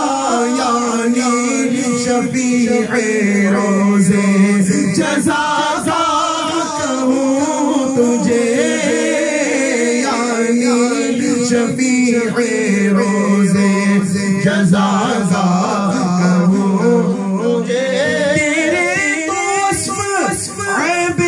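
Two men singing an Urdu naat unaccompanied through microphones, in long held notes with a wavering vibrato.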